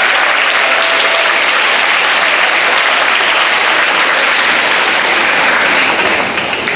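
A hall full of students applauding, steady and loud, fading out near the end.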